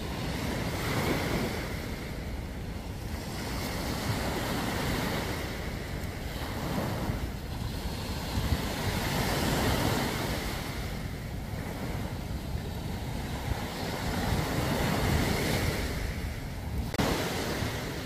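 Small waves breaking and washing up a sandy beach, the surf swelling and fading every few seconds, with wind buffeting the microphone.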